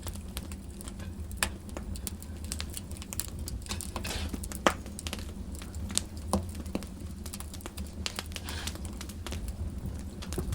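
Wood fire in a fireplace crackling, with irregular sharp pops and one louder snap about four and a half seconds in, over a steady low rumble.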